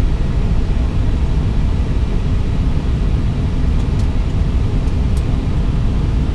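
Steady low rumble of an Airbus A320neo cockpit with the engines idling while the aircraft waits on the runway, with a couple of faint clicks about four and five seconds in.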